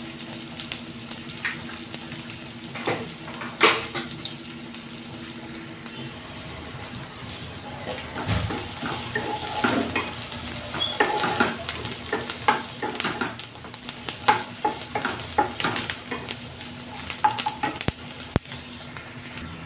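Chopped onions sizzling in hot oil in a nonstick pan as they fry toward golden, with a wooden spatula scraping and knocking against the pan as it stirs them. The stirring knocks come more often in the second half.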